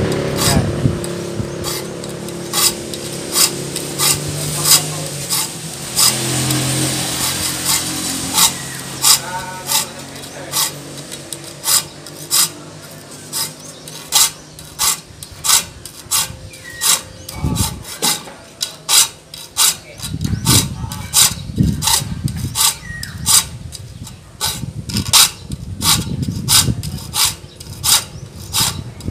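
A hand file rasping across the teeth of a handsaw clamped in a vise as the saw is sharpened: a steady run of short filing strokes, about two a second, getting quicker in the second half. A low hum sits under the first few seconds.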